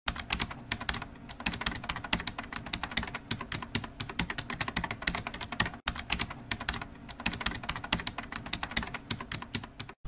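Rapid computer-keyboard typing clicks, a dense run of keystrokes that breaks off for a moment about six seconds in. It is a typing sound effect laid under text being typed out on screen.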